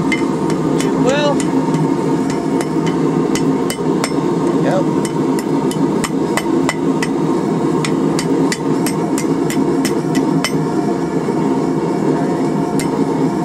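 Hand hammer striking a hot steel wrench on an anvil horn, bending it into a curve: sharp metal-on-metal blows in irregular runs of a few a second, with a pause near the end before one last blow. A steady low drone runs underneath.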